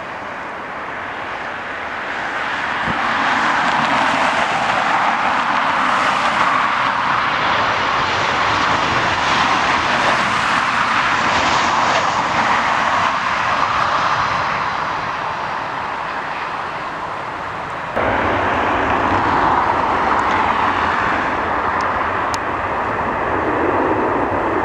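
Boeing 737 jet engines: a steady rushing noise that swells for several seconds and then fades, then jumps back up abruptly about three-quarters of the way in.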